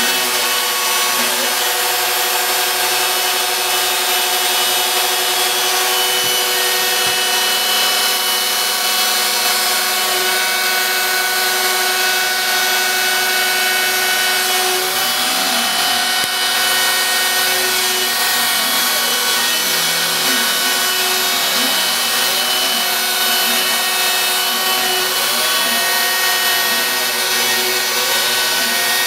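Home-built CNC router cutting MDF: the router spindle runs with a steady high whine over the noise of the bit cutting. In the second half a fainter tone from the machine's drive motors rises and falls again and again as the axes trace curves.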